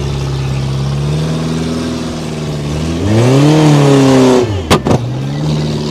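Peugeot RD's fuel-injected Paykan four-cylinder engine driving on a gravel track: it runs steadily, then revs up and back down about three seconds in, and two sharp cracks follow just after.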